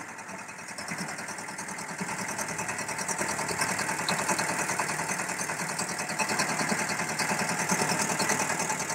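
Small stationary engine of a concrete mixer running steadily with a fast, even chugging, growing louder over the first few seconds.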